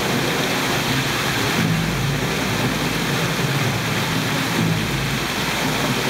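Fountain water jets and spray falling back into the basin of a water-screen show: a steady rushing hiss, with a low hum coming and going underneath.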